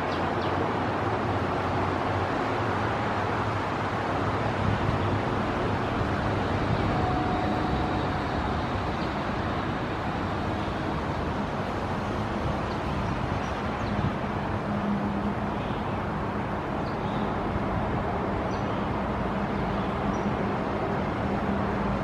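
Steady background traffic noise with a low hum running under it; no pecking stands out.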